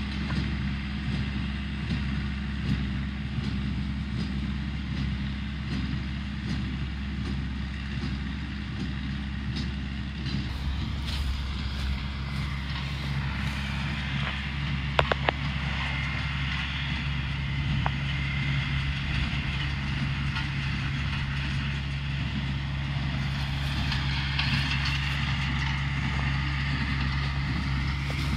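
Tractor engine running steadily while pulling a small square hay baler, its engine note dropping to a lower pitch about twelve seconds in. A few sharp clicks sound around fifteen seconds in.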